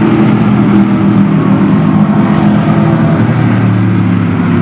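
Pack of stock cars racing on a dirt oval, their engines running loud and steady at speed with the pitch shifting a little as they pass through the turns.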